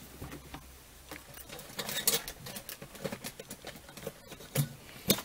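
Hands handling a QUICK 706W+ soldering station while reaching for its rear switch: an irregular string of clicks and knocks on the casing, with the loudest, sharp click near the end.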